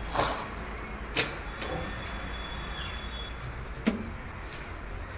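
Three short sharp knocks, one near the start, another about a second later and a third some two and a half seconds after that, over a steady low background rumble.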